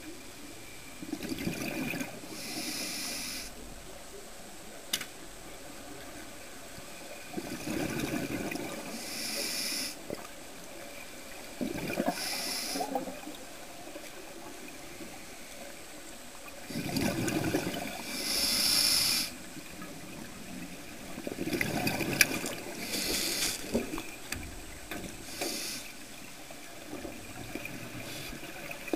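Scuba diver breathing through a regulator underwater: the rush of exhaled bubbles alternates with the high hiss of each inhaled breath, about five breaths, one every four to five seconds.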